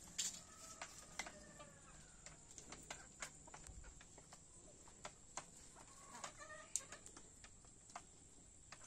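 Chickens clucking softly, with two short calls, one just after the start and one about six seconds in, over scattered small taps of beaks pecking at feed.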